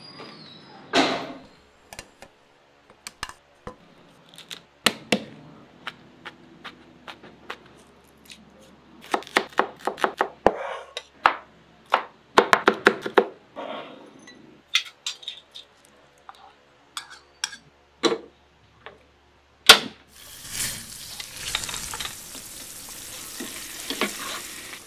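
Kitchen cooking sounds: a cleaver knocks on a cutting board, singly and then in quick runs of chopping. From about twenty seconds in, food is sizzling in a frying pan while being stirred, with utensils clattering against the pan.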